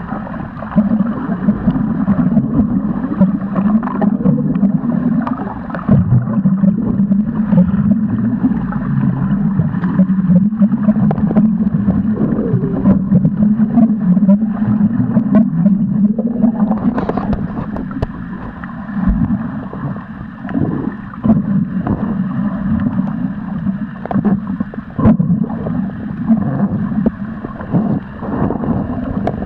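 Underwater sound picked up by a submerged camera: a steady low rumble with irregular clicks and crackles as water moves against it.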